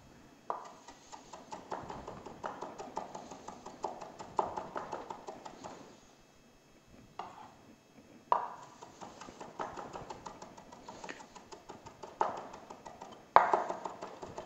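Chef's knife dicing pickled ginger on a wooden cutting board: quick runs of knife taps, several a second, with a short pause about six seconds in before the chopping picks up again.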